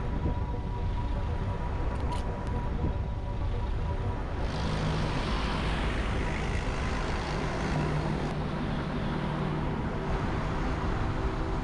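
Road traffic heard from a moving bicycle, with rumble and hiss. From about four and a half seconds in, a motor vehicle passes close by, its engine hum and tyre hiss lasting several seconds.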